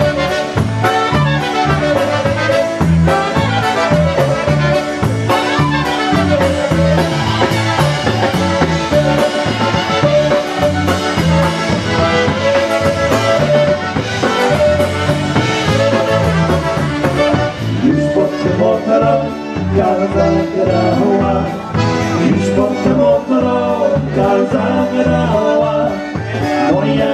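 Live polka band playing an instrumental break of a Polish polka song, with a steady bass-and-drum beat under the melody.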